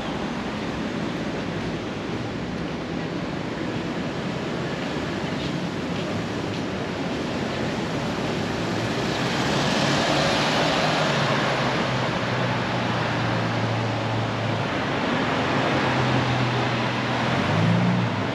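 City street traffic noise: a steady rush of passing vehicles and tyres, swelling as a vehicle goes by about ten seconds in. A low engine hum follows and rises in pitch near the end as a vehicle accelerates.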